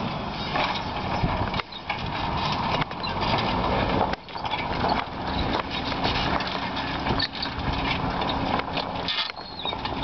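Fendt 716 tractor's diesel engine working steadily under load as it pulls a five-furrow reversible plough through the soil, mixed with rushing noise and irregular clatter.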